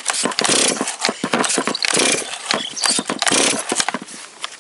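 Stihl chainsaw's recoil starter pulled again and again, the two-stroke engine cranking over with each pull but not catching: a no-start. The pulls stop about four seconds in.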